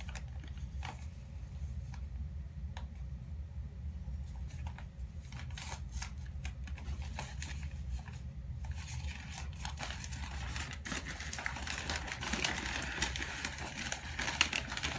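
Wrapping being handled and pulled off a packed orchid plant: a few scattered small clicks and snips at first, then steady crinkling and rustling of the wrapping from about halfway through.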